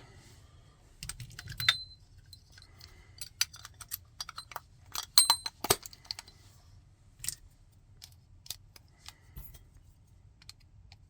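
Small metal clicks and light clinking of doorknob lock parts and keys being handled and fitted back together, in irregular single taps and short clusters, a few with a brief metallic ring.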